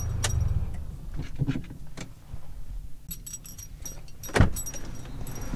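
Inside a parked Toyota car: a low rumble that fades after about a second, light clicks and faint jingling, then a sharp click about four seconds in as the interior door handle is pulled to open the driver's door.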